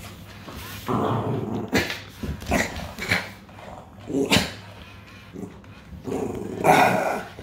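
A dog growling at a robotic toy cat, in several separate spells with a few short barks mixed in; the longest and loudest growl comes near the end.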